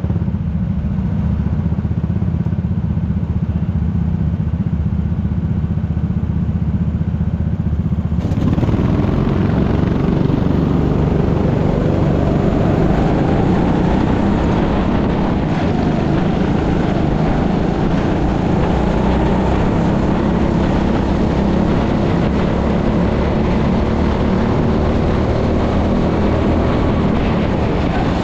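Kart engine running at racing speed, heard onboard with other karts close by, a continuous drone. About eight seconds in the sound suddenly turns brighter and fuller, with more noise over the engine.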